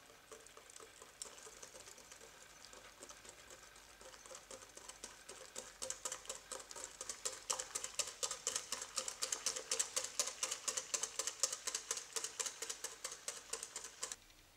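Wire whisk beating against a ceramic bowl, whisking egg yolks as milk is poured in: a quick rattle of clicks, about five a second, that builds up a few seconds in and stops just before the end.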